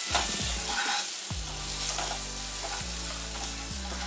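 Whole boiled eggs coated in chilli powder and spices, shallow-frying in butter and sizzling in a nonstick pan while a spatula rolls them around, with a few light scrapes and knocks in the first second.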